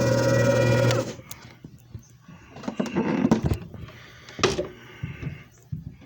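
JFJ Easy Pro disc repair machine's motor running with a steady hum, then switching off about a second in and winding down. Scattered clicks and rustling clatter follow.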